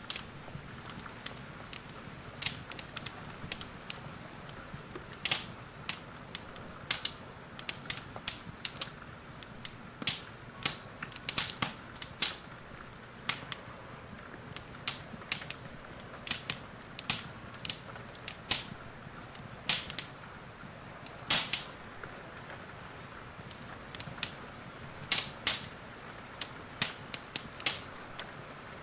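Wood fire in a fireplace crackling, with irregular sharp pops and snaps over a soft steady hiss; the loudest pops come about two-thirds of the way through.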